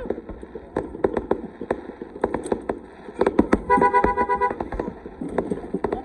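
Fireworks bangs and crackling throughout, with a car horn honking for just under a second about four seconds in.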